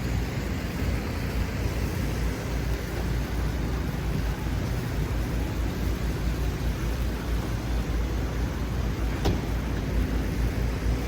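Steady low rumble of street traffic, with a single sharp click about nine seconds in.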